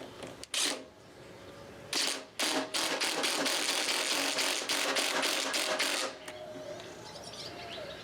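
Cordless drill/driver driving a screw through a lathe faceplate into a hard purpleheart blank, with a brief blip about half a second in, then running in a rattly burst from about two seconds in, stopping abruptly just after six seconds.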